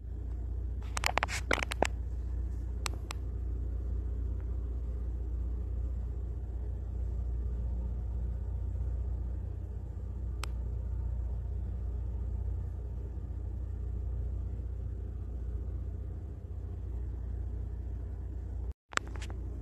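Steady low rumble, with a quick run of clicks and taps about a second in, two more clicks near three seconds and a single click about ten seconds in.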